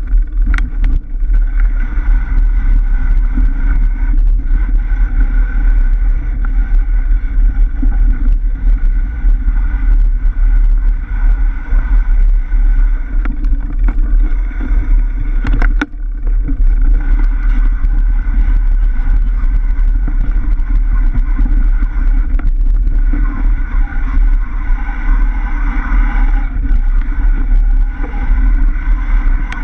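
Mountain bike riding down a dirt singletrack, heard from a camera on the bike: a constant, loud, low rumble of wind and tyre-and-trail vibration, with a brief dip about halfway through.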